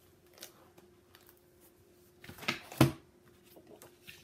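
Paper planner pages rustling as they are handled, with a brief rustle early and a louder burst of paper handling about two and a half seconds in, ending in one sharp snap.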